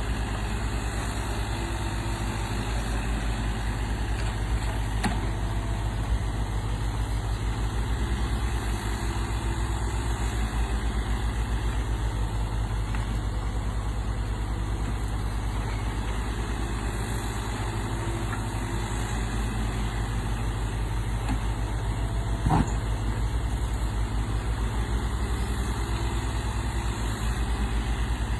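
Everun ERE35 mini excavator's diesel engine running steadily as the machine works, with a few brief clicks and one sharper clank about three-quarters of the way through.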